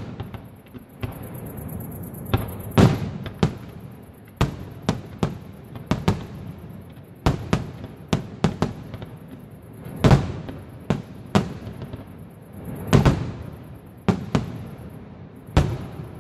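Aerial fireworks display: an irregular run of firework shell bursts, sharp bangs of varying loudness coming more than once a second. The loudest fall about three, ten and thirteen seconds in.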